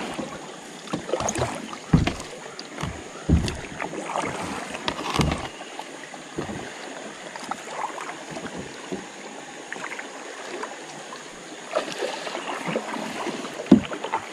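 A kayak being paddled: paddle strokes splashing in the water, with a few irregular knocks and thumps.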